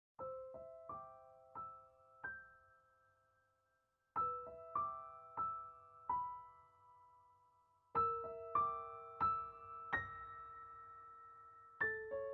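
Slow, gentle piano music: short phrases of four or five single notes, each note ringing on and fading, with pauses between the phrases.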